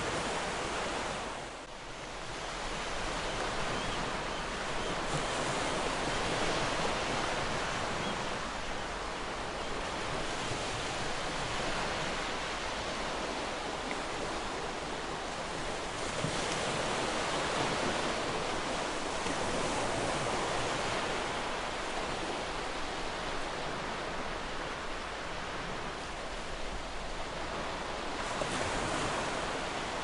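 Ocean waves washing onto a shore: a continuous rushing wash that swells and eases, dipping briefly about two seconds in.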